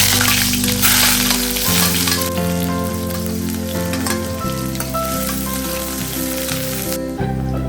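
Food sizzling as it fries in a hot pan, loudest for the first two seconds, then weaker until it stops near the end. Soft background music plays underneath.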